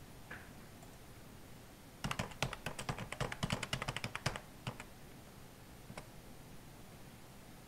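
Computer keyboard typing: a quick run of keystrokes lasting about two and a half seconds, starting about two seconds in, followed by a single click about six seconds in.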